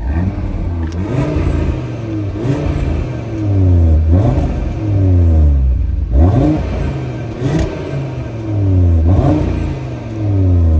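Audi RS3's turbocharged 2.5-litre five-cylinder revved through its stock rear exhaust with Unitronic mid-pipes, about seven blips, each climbing quickly and then falling slowly back toward idle. The tone is tame enough that the owners want to 'wake that up'.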